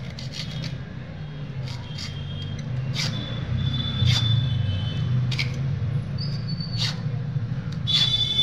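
Hacksaw strokes cutting a thin metal strip, an irregular scraping with sharp clicks and short high metallic squeals, over a steady low hum.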